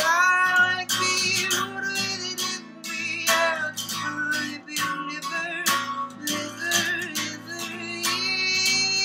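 A man singing while strumming an acoustic guitar, the strums coming in a steady rhythm under the vocal line.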